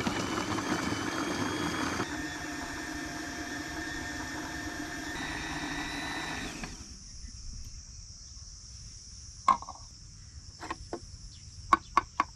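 Small electric food processor running for about seven seconds as it chops green chillies, garlic and ginger, then switching off. A few sharp clicks and knocks follow near the end as the lid and blade are handled.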